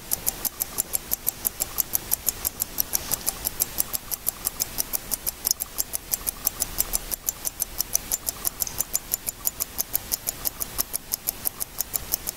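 Shenhua 9541 automatic skeleton wristwatch ticking, recorded close up: a fast, even stream of sharp ticks, several a second, from the running escapement and balance wheel of its mechanical movement.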